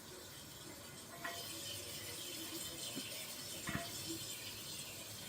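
Faint hiss of running water that gets louder about a second in, with a few faint clicks and knocks.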